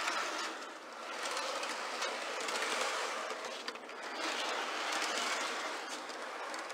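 Model train cars being pushed by hand around sectional track, their wheels rolling and rattling over the rail joints in swells that rise and fade every second or two.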